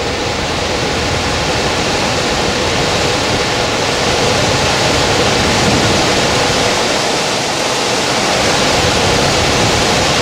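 Goodman air handler's variable-speed blower running on a test run: a steady, loud rush of air through the squirrel-cage wheel. It grows slightly louder as the blower ramps up from fan-only speed toward its 1200 CFM high-stage cooling speed.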